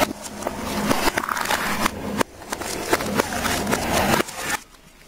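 Aluminium soda cans being crushed under a car tyre, a dense crunching and crackling with many sharp clicks. It breaks off briefly about two seconds in and stops abruptly near the end.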